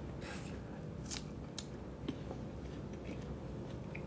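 Quiet room tone with a steady low hum, broken by a few brief, faint rustles and light clicks.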